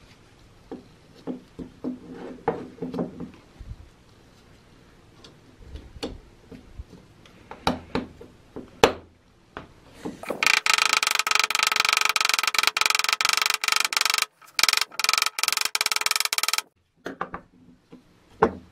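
Light metal clicks and knocks as a ball bearing and small parts are handled and seated in an aluminium drill gear housing. About ten seconds in, a loud, steady buzzing rattle runs for about six seconds, stopping briefly a few times.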